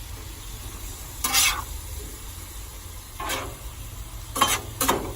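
Chicken fajita meat and peppers sizzling on a Blackstone flat-top griddle while a spatula scrapes and stirs them across the hot steel, four short scrapes with the last two near the end.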